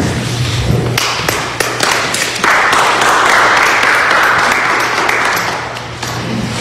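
Congregation applauding. Scattered claps start about a second in, swell into full applause, then thin out before the end.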